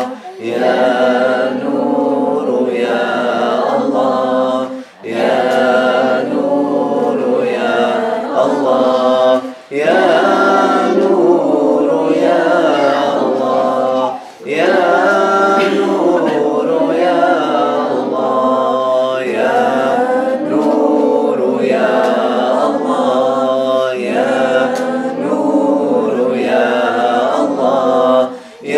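A small group of men's and women's voices singing a devotional dhikr chant a cappella, with no instruments. The singing is broken by a few short pauses between phrases.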